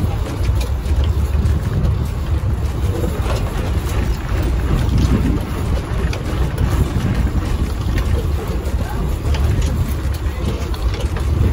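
Charter fishing boat's engine running with a steady low rumble, mixed with wind buffeting the microphone.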